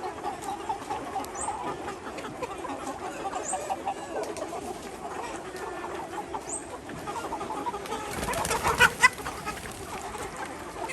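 A flock of Ho chickens clucking continuously, with a louder cluster of sharp calls about eight to nine seconds in.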